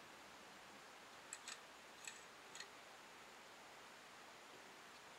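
Light plastic clicks, about four in quick succession a little over a second in, from the parts of a small Bandai Shodo-X Machine DenBird toy motorcycle being handled, over a faint steady hiss.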